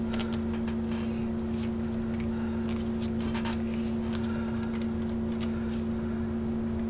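Steady electrical-sounding hum holding two even tones, with faint scattered rustles and light clicks of paper and gloved hands being handled.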